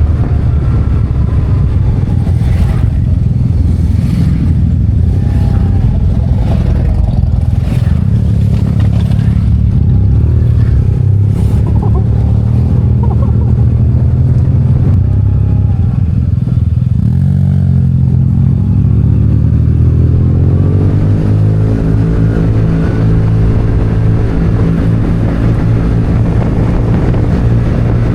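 Yamaha TMAX maxi-scooter engine running steadily under way, its pitch rising about two-thirds of the way through as it accelerates and then holding at the higher note.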